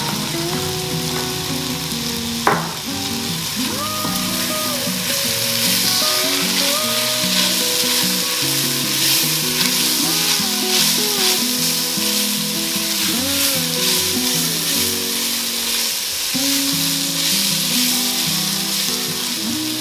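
Diced potatoes, onion and carrots sizzling in oil in an enamelled cast-iron Dutch oven as they are stirred with a silicone spatula, with one sharp knock about two and a half seconds in. Instrumental music plays underneath.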